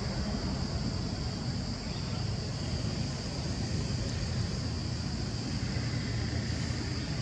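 Steady outdoor background noise: a low rumble with a constant high hiss above it, unchanging throughout.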